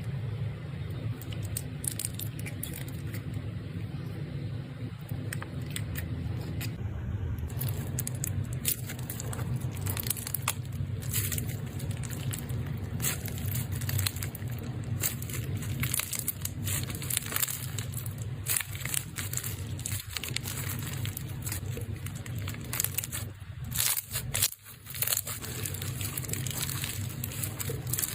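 Foaming slime being squeezed and pressed by hand, giving irregular crackling and popping clicks over a steady low background hum.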